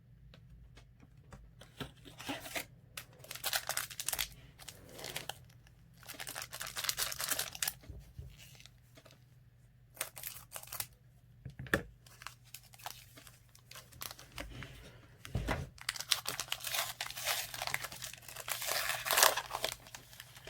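A trading-card pack wrapper being torn open and crinkled, in irregular bursts of crackling that are densest near the end. Two short low knocks come about 12 and 15½ seconds in.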